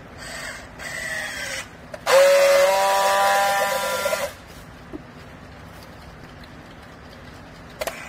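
Battery-powered handheld strapping tool working a yellow plastic strap around a compressed bale, tensioning and sealing it. There are two short motor whirs, then a loud steady motor whine for about two seconds that stops suddenly.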